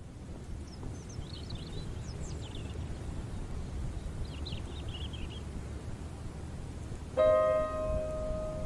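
Park ambience: a steady low rumble with scattered bird chirps. About seven seconds in, a piano is struck once, loud, and the note rings on.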